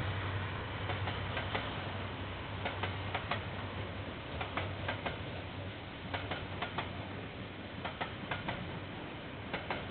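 Container freight train wagons rolling past, their wheels clicking in close pairs over rail joints, a pair every second or so, over a steady rolling rumble.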